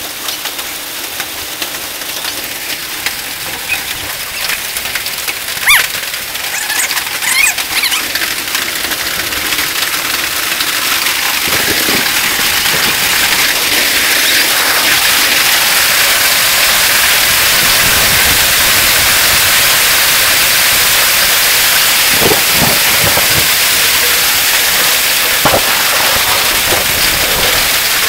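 Hailstorm: hail and rain pelting down, with a few sharp cracks of hailstones in the first third, then thickening into a steady, louder downpour about halfway through.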